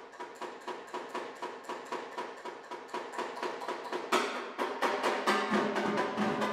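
Snare drum played with sticks in an even run of strokes, about six a second, each with a short ringing tone, growing steadily louder. About four seconds in the strokes get stronger, and a deeper ringing tone joins near the end.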